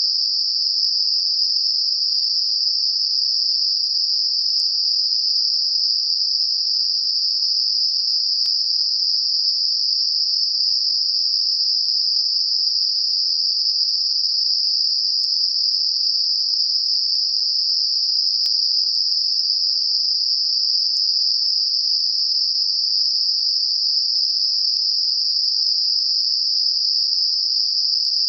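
Synthetic Gaussian narrow-band noise centred on 5 kHz: a steady, unchanging high-pitched hiss made as a tinnitus masker.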